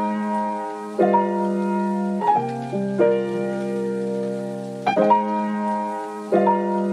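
Instrumental break in a sped-up pop song: sustained piano chords, each struck and left to ring for one to two seconds, with no vocals or drums.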